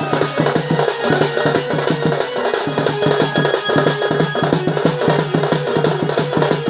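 Folk drumming for a danda dance: drums struck in a fast, steady rhythm, with a few held higher instrument tones above.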